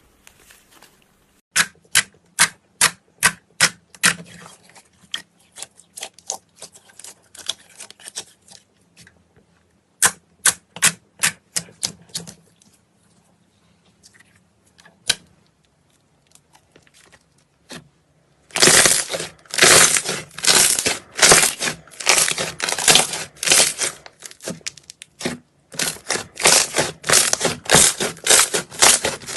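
Slime being played with by hand, making a string of sharp clicking pops a few times a second. From about two-thirds of the way in come denser, louder crackling squelches.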